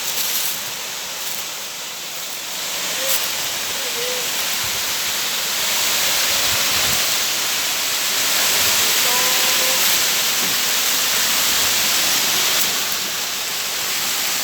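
Steady rushing of falling water from a tiered waterfall, growing louder about six seconds in.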